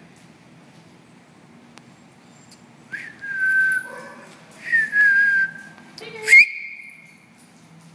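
A person whistling three notes, each held about a second and sliding slightly down in pitch, the last opening with a quick upward sweep.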